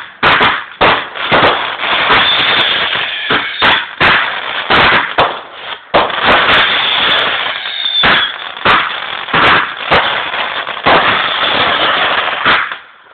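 Consumer fireworks going off in a rapid barrage: sharp bangs a few times a second over continuous crackling, stopping near the end.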